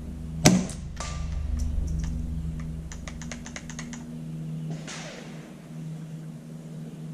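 A single suppressed shot from a Smith & Wesson M&P 15-22 .22 LR rifle about half a second in, followed about half a second later by a faint ping of the bullet striking the steel target at 100 yards. Later comes a run of quick, light clicks.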